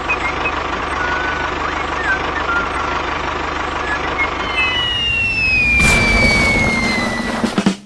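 Steady vehicle engine noise. Through the second half a long high whistle slides slowly down in pitch, and the sound cuts off suddenly near the end.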